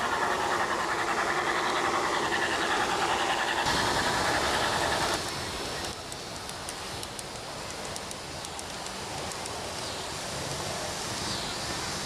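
G-scale model train running along its garden track: a steady rolling sound of wheels and motor that drops to a quieter run about five seconds in, with a few light clicks.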